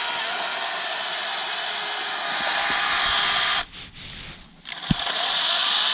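Harbor Freight LYNXX 40-volt cordless chainsaw cutting through ash wood, its electric motor and chain running steadily. It stops about three and a half seconds in, there is a sharp knock, and then it starts cutting again about a second later.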